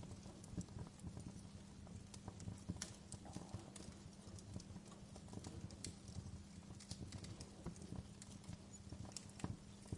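Wood fire in a fireplace crackling, with irregular sharp pops and snaps over a low, steady rumble of burning.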